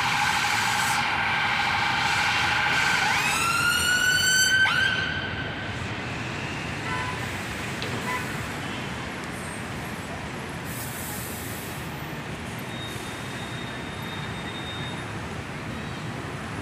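Emergency vehicle siren sounding a fast, pulsing tone, switching to rising tones about three seconds in and cutting off about five seconds in. After that, steady city road traffic.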